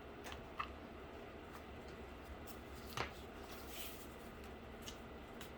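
Light handling noises at a desk: a few faint clicks and taps, the sharpest about three seconds in, with a brief soft rustle after it, over a low steady hum.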